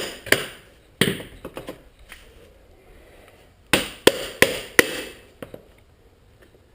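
Hammer tapping a Honda CRF230's chain adjuster round to the next notch: a few sharp, ringing taps near the start, a pause, then four more in quick succession about four seconds in.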